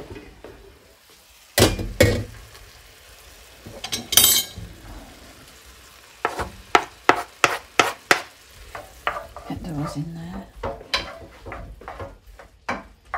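A utensil stirring mushrooms as they sweat in a frying pan, knocking sharply against the pan again and again, with a quick run of knocks midway, over a faint sizzle.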